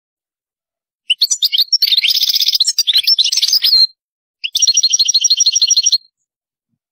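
European goldfinch singing: a twittering phrase of quick, varied high notes, then after a short break a fast, even trill of about ten repeated notes.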